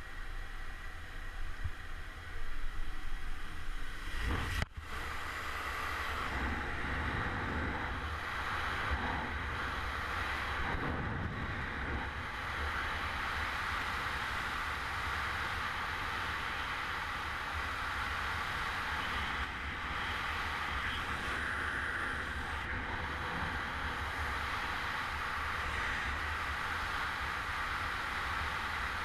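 Jump-plane engine and wind noise at the open door, swelling in the last seconds before a sudden break about four and a half seconds in. Then a steady rush of freefall airflow buffeting the helmet camera's microphone during the wingsuit flight.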